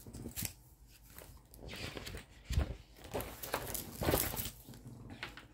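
Light handling sounds on a tabletop: paper sheets rustling and a few soft knocks, the clearest about two and a half seconds and four seconds in.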